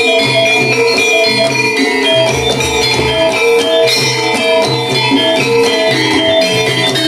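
Gamelan music for an ebeg (kuda lumping) dance: ringing metallophone notes over a steady, repeating low drum pattern.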